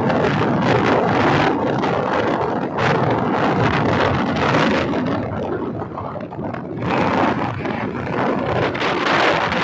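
Wind buffeting the microphone of a moving motorcycle, a loud steady noise that wavers in level, with road and engine noise underneath.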